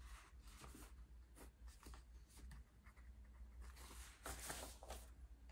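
Near silence, with a few faint scratchy rustles, the strongest a little past four seconds in, over a low steady hum.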